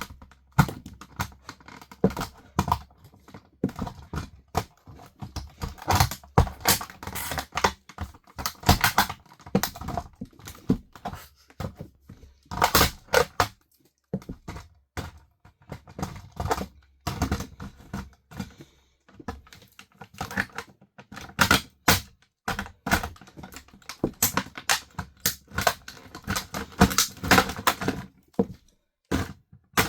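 Plastic body and parts of a toy RC car cracking, snapping and crunching under high heels: an irregular run of sharp cracks, sometimes in quick clusters, with short pauses between.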